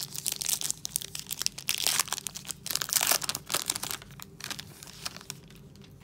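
Foil wrapper of a trading-card pack torn open and crinkled by hand, dense crackling for about four seconds, then quieter as the cards are slid out.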